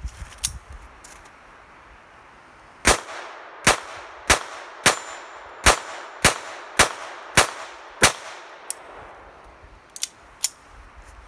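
Phoenix Arms HP22A .22 LR pocket pistol firing nine shots, one every half to three quarters of a second, cycling without a malfunction. Two faint clicks follow near the end.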